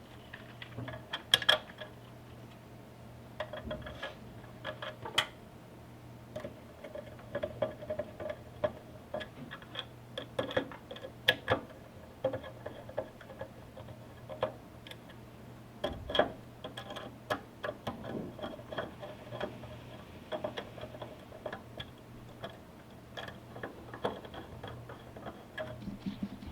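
Screws being driven by hand with a Phillips screwdriver: many small, irregular clicks and ticks, with a steady low hum underneath.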